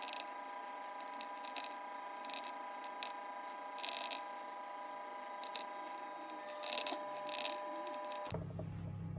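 A steady hum of several held tones, with a few faint light taps and rustles as pastry lids are pressed onto a metal muffin tin.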